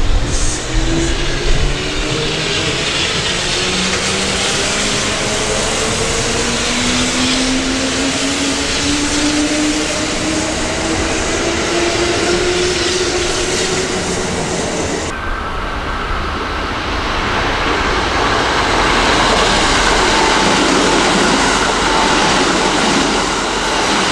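Kintetsu electric train accelerating: its traction-motor whine rises steadily in pitch over the running noise of the wheels. About fifteen seconds in, the sound changes abruptly to the steady rush and rumble of a train running through.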